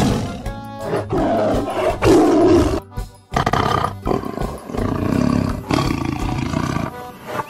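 Tiger roaring in several bursts, the last one long, over background music.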